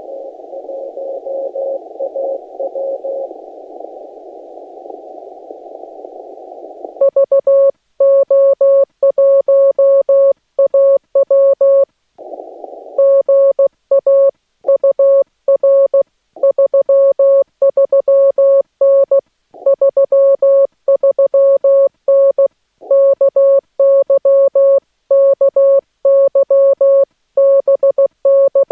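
Morse code from a Yaesu FT-891 transceiver. First comes receiver hiss through a narrow CW filter with a faint keyed tone in it. About seven seconds in, a loud single-pitched sidetone starts keying out Morse characters, with dead silence between them, as the operator sends. The hiss returns briefly about halfway through.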